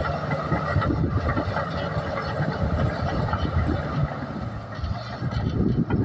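Komatsu D61EX crawler bulldozer's diesel engine running steadily under load as the dozer reverses, with the clatter of its steel tracks.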